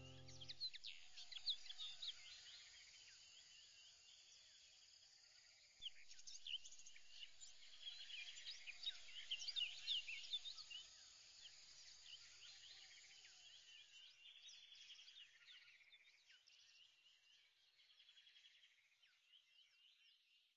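Many birds chirping together, short high calls overlapping in a dense chorus. It grows louder about six seconds in and fades out toward the end.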